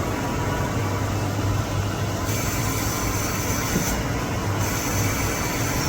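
Tsugami BO325-II CNC Swiss lathe running a machining cycle: steady machine noise with a low hum, and a high whine that comes in a little over two seconds in, drops out briefly about four seconds in, then returns.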